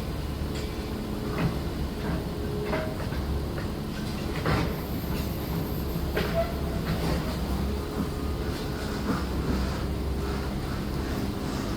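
Demolition machinery: a heavy machine's engine running steadily, with irregular knocks and clanks every second or two.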